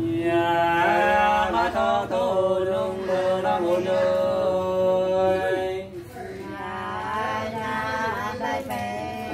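Men singing sli, the unaccompanied two-part Nùng folk song, holding long, slowly wavering notes, with a brief drop in loudness about six seconds in.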